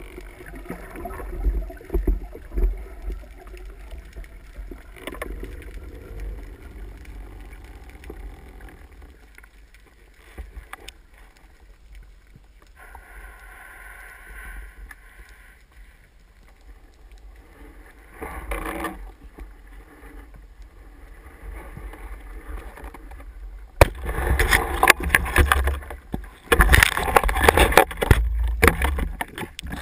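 Underwater noise picked up by a speargun-mounted camera's housing: water moving over it with scattered knocks and clicks. From about 24 seconds in it turns loud and choppy, with many knocks and rushing water.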